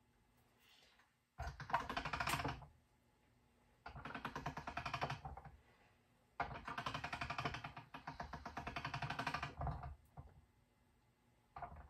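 Hand-cranked pasta machine being turned in four short runs, its gears and rollers clicking rapidly, as polymer clay is rolled through it to condition it.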